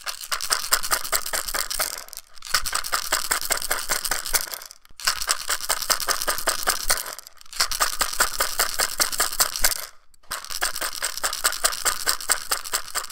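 Handmade rattle of salmon skin stretched over an oyster shell, with ceramic beads inside, shaken in five rapid bursts of about two seconds each, with short pauses between them.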